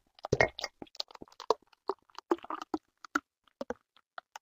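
Beer poured from a bottle into a glass mug close to the microphone, the foaming head crackling and fizzing in irregular small pops that thin out toward the end.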